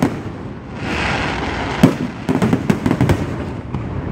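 Aerial fireworks bursting: a hiss about a second in, then a single loud bang followed by a rapid run of sharp bangs.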